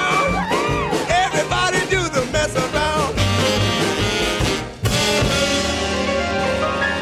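Background music with a quick beat. It stops briefly about five seconds in, then ends on a long held chord.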